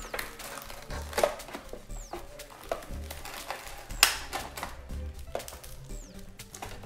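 Crisp cracks and crackles as the deep-fried skin of a crispy pata (pork leg) is torn apart by hand, the sharpest crack about four seconds in. Background music with a low beat about once a second plays throughout.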